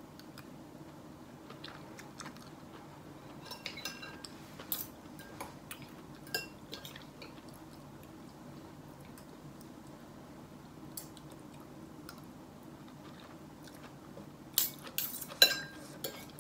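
A person eating stir-fried greens with a metal spoon: chewing, with scattered clinks of the spoon against the plate and a quick cluster of them near the end. A steady low hum runs underneath.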